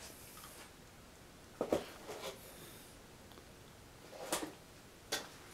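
A few brief clicks and rattles of a ceiling-fan light kit's pull chain as it is worked to switch the light on, with quiet in between.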